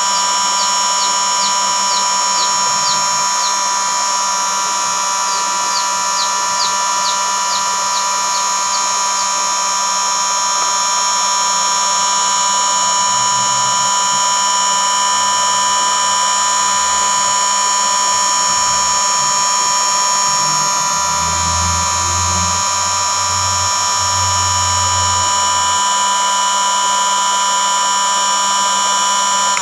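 Electric heat gun running continuously, its fan motor giving a loud, steady high-pitched whine, cutting off at the very end. It is blowing hot air around a motorcycle headlight's rim to soften the lens adhesive.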